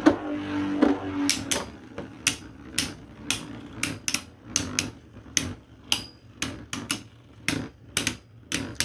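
Spinning Beyblade tops, one of them 3D printed, whirring in the stadium and then clashing again and again, giving sharp clacks about twice a second. The hits are light: the attacker is not a hard hitter.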